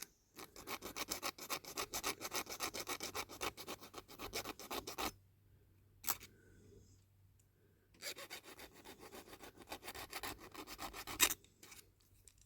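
Small hand file rasping quickly back and forth on a die-cast metal part, in two runs of short rapid strokes: one of about five seconds, then a pause with a single click, then about three seconds more ending on a sharper stroke.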